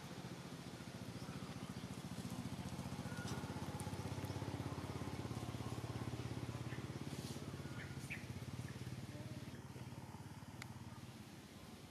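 A low engine drone that swells to a peak in the middle and fades away towards the end, as of a motor vehicle passing by, with a few short faint squeaks and clicks over it.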